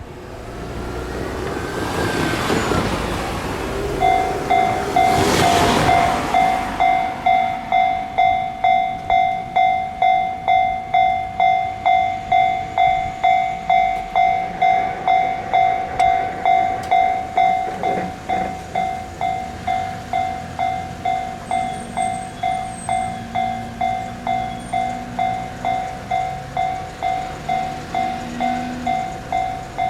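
Japanese railway level-crossing alarm starts about four seconds in and rings steadily, an electronic two-tone clang about one and a half strokes a second, warning that a train is approaching. Before that, a loud passing rush swells and fades.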